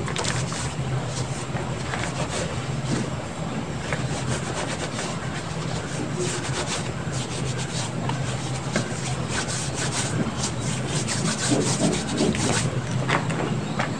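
Hands rubbing and squeezing damp, crumbled gym chalk, cornstarch and charcoal powder. The sound is a continuous gritty rubbing dotted with many short crackles, thickest in the second half, over a steady low hum.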